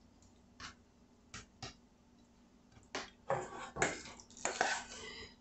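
A few soft taps, then from about three seconds in a utensil scraping and clinking against a stainless steel mixing bowl as cream-cheese stuffing is scooped out.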